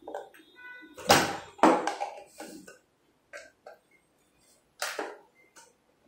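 Metal lock hardware knocking and clinking against a door panel as the latch is fitted into the bore hole: a short metallic ringing note, then a series of sharp knocks, the loudest about a second in and another near five seconds.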